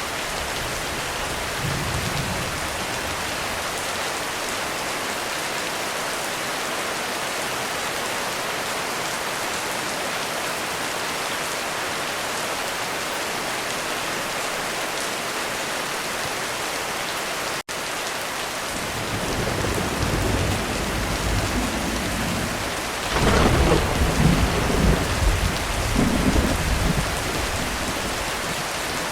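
Heavy, steady rain pouring on a roof, with a long rumble of thunder rolling in about two-thirds of the way through and peaking a few seconds before the end.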